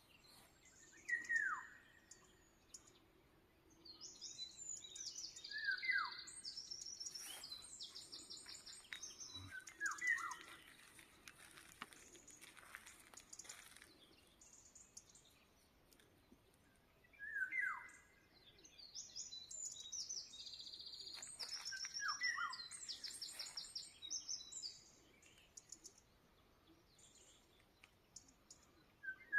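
Birds singing: a short falling whistled note comes back every few seconds, and over it runs a high, rapid, chattering song in two long bouts.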